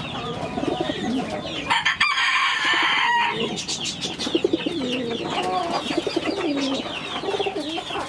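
Fantail pigeons cooing in low, wavering calls, with chickens clucking around them; a louder, higher call, a rooster crowing, comes in about two seconds in and lasts just over a second.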